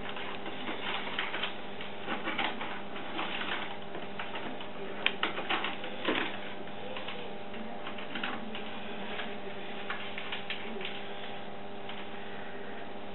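Irregular small clicks and crinkles of latex-gloved hands handling and pressing down a strip of adhesive tape on skin, over a steady low electrical hum.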